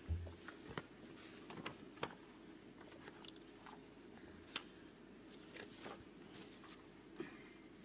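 Quiet hall room tone with scattered small clicks and light knocks, the loudest a low thump right at the start.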